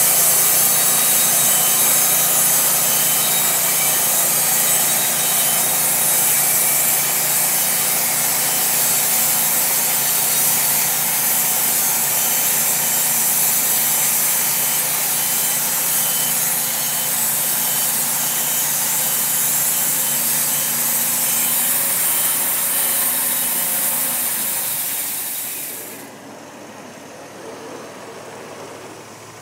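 Wood-Mizer LT40 portable band sawmill cutting a Douglas fir piling: a steady hiss of the band blade in the wood over the running engine. About 26 seconds in the cut ends, the sawing noise stops, and the engine runs on quieter.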